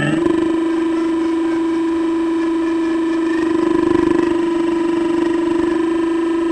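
Radio-controlled excavator's small electric drive whining at one steady pitch as the arm and bucket move, swelling slightly about four seconds in.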